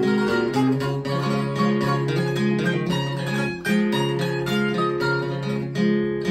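Instrumental duet of mandolin and acoustic guitar: the guitar strums chords in a steady rhythm while the mandolin picks along. The sound drops briefly about three and a half seconds in.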